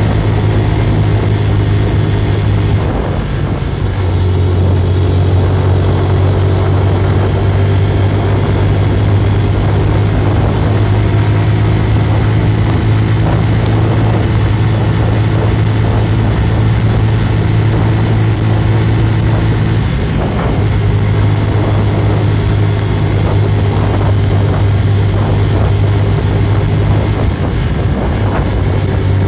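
Engine of a moving road vehicle running steadily at cruising speed, with a steady low hum and road noise; the engine note shifts briefly about three seconds in and again about two-thirds of the way through.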